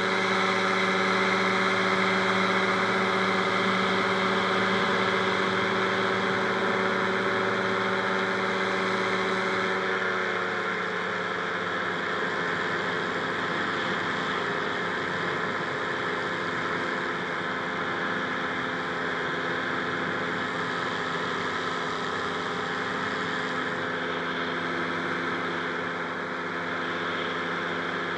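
Rotax 582 two-stroke twin engine of a Buckeye powered parachute running steadily, then throttled back a little about ten seconds in, its pitch dropping slightly and settling at the lower setting.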